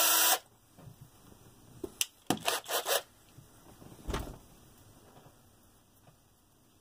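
A power drill on high speed spins a hinge pin inside a wad of steel wool, then cuts off abruptly within the first half second. A few sharp clicks and clatters of handling the drill and pin follow, with a dull knock about four seconds in.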